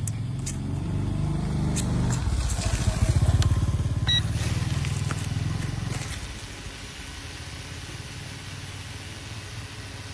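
Mini S5S toy drone's motors and propellers buzzing in flight, the pitch wavering as the motors speed up and slow down. It is loudest about three seconds in and drops to a fainter hum after about six seconds.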